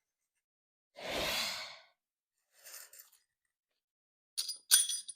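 A man's long sigh about a second in, then a few light metallic clinks near the end.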